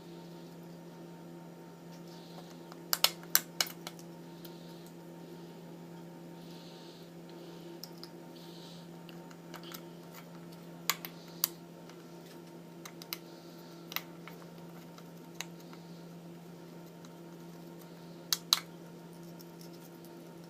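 An Eclectus parrot biting and crunching ice with its beak: sharp clicks and cracks in short clusters of two or three, with softer crunching between, over a steady low hum.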